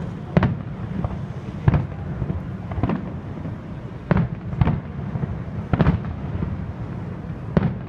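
Aerial fireworks shells bursting: about seven sharp bangs at uneven intervals, over a steady low rumble.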